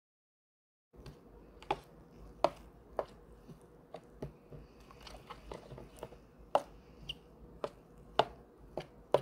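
A metal spoon stirring thick soy-and-chili seasoning sauce in a glass bowl, clinking and knocking against the glass irregularly, about two knocks a second. The sound starts about a second in.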